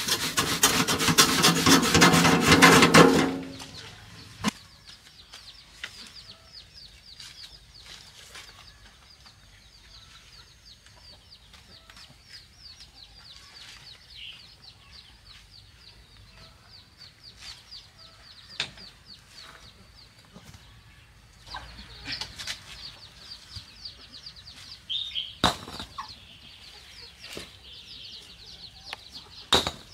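A wheelbarrow load of sand-and-cement mix poured out onto the floor, a loud rushing pour lasting about three seconds. After that, chickens clucking, with a few sharp knocks near the end.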